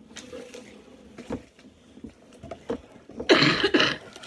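A person coughing in a short burst about three seconds in, after a few faint clicks and rustles.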